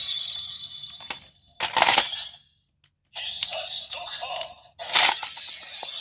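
Seiken Swordriver toy belt playing its electronic sound effects through its small speaker for the Brave Dragon, Konchu Daihyakka and Ocean History Wonder Ride Books combination. Its music fades out, then two sharp crashing effects come about three seconds apart, with a brief silence and a few plastic clicks between them.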